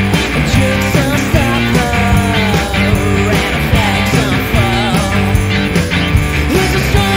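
Rock song playing: a full band with steady bass notes, regular drum hits and electric guitars, with a melody line sliding in pitch above them.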